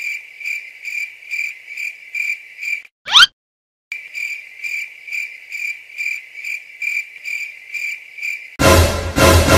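Cricket chirping sound effect, a high chirp repeating a little more than twice a second. About three seconds in, a short loud sweeping swish cuts it off, with a moment of silence before the chirping resumes. Loud music comes in near the end.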